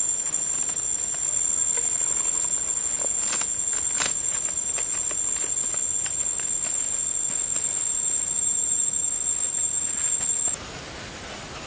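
A steady, shrill insect chorus: several high whining tones held without a break, cutting off abruptly near the end. There are occasional light crinkles of plastic cling film being handled and wrapped around a tree trunk.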